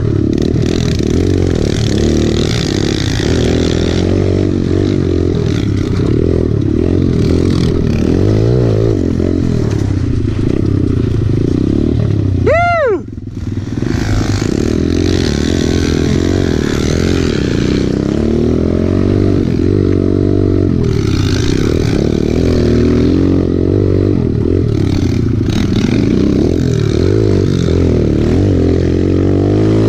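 Kawasaki KLX110 pit bike's small four-stroke single-cylinder engine revving up and down as it is ridden along a dirt trail, with wind noise on the microphone. About halfway through, the engine revs sharply up and straight back down, then briefly drops in level.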